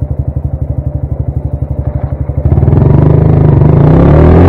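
Motorcycle engine idling with an even, rapid pulse. About two and a half seconds in it gets suddenly louder and revs, its pitch rising and falling.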